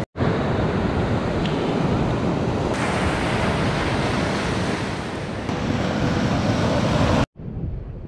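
Sea surf washing ashore, with wind buffeting the microphone. It cuts off suddenly about seven seconds in, and a much quieter low hum follows.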